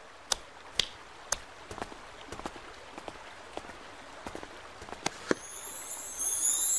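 A scattered string of light, irregular clicks and taps. About six seconds in, a bright, high shimmering sparkle effect rises as a chest full of pearls is shown open.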